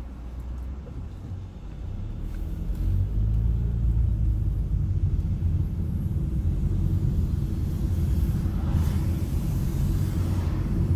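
Car driving, heard from inside the cabin: a steady low engine and road rumble that grows louder about two to three seconds in as the car picks up speed.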